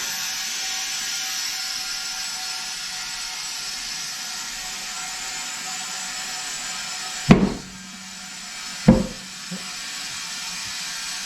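Compressed air hissing steadily into a tire through a valve stem with its core removed, then two sharp loud pops about two seconds apart, a little past halfway, as the tire beads seat on the rim; air keeps hissing more quietly after.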